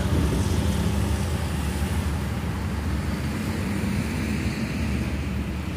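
City bus's diesel engine running as the bus drives away, a low rumble that slowly fades, over a steady hiss of road traffic.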